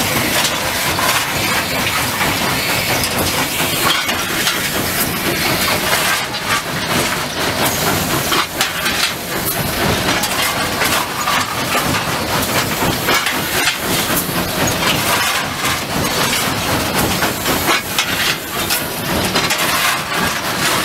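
Steam locomotive running, heard from inside its cab: a steady hiss of steam over constant rattling and clatter.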